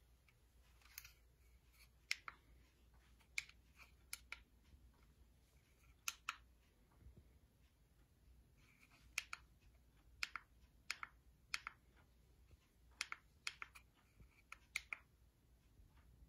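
Faint, sharp clicks, about twenty of them at irregular intervals and often in quick pairs, over a faint low hum: the buttons of the LED backlight's remote control being pressed to step the light through its colours.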